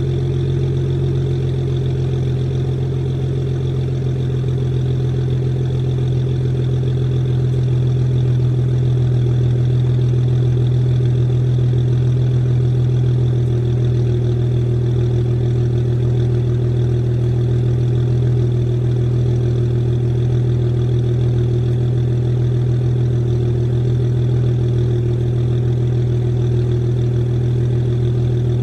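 BMW 335i's N55 turbocharged inline-six idling steadily through an exhaust with a catless downpipe, during a cold start.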